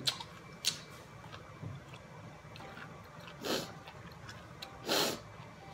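Two sharp clicks of a metal fork on a plate, then two sniffs through the nose about a second and a half apart, the second longer and louder, as of a runny nose or someone teary.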